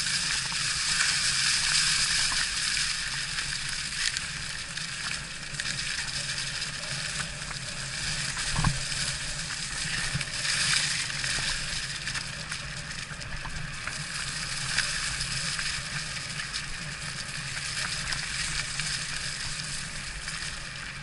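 Electric mountain bike being ridden over a rough trail: a steady crunching hiss of the tyres rolling over the surface, with one sharp knock about eight and a half seconds in.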